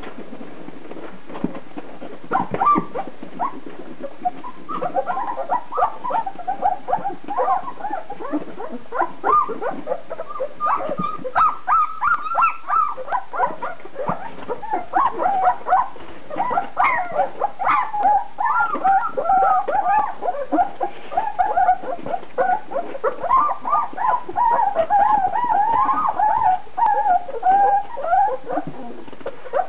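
Two-week-old German shepherd puppies whimpering and squeaking while nursing, many short, high calls overlapping each other. The calls start about two and a half seconds in and keep on almost without a break.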